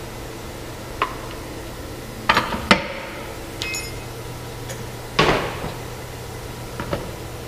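Metal knocks and clinks of tools and machine parts being handled during a format changeover on a SATE S700 rigid box machine, over a steady low hum. About six irregular hits come a second or two apart, some ringing briefly; the loudest comes about five seconds in.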